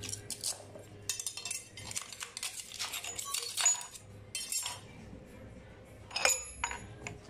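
Metal parts and tools being handled: a run of light clinks and rattles, then a sharper metallic clink with a brief ring about six seconds in.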